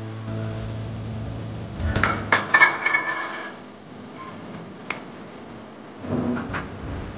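A metal spoon clinking and scraping against a ceramic plate as chicken filling is spread over a crepe. A cluster of ringing clinks comes about two seconds in, with more single taps later. A low steady hum runs through the first two seconds.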